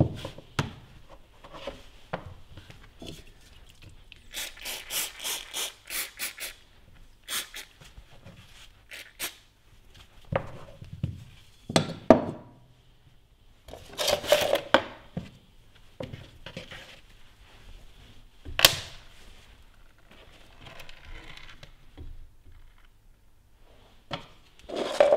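A cloth rag rubbing and wiping a small aluminium timing pulley, with a run of quick rubbing strokes about five seconds in. Scattered sharp knocks come as the pulley and other parts are handled and set down on the cutting mat.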